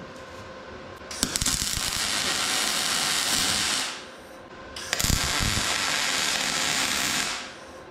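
Two runs of MIG welding on zinc-coated steel, each about two and a half seconds long. Each starts sharply and crackles steadily, with a short gap between them.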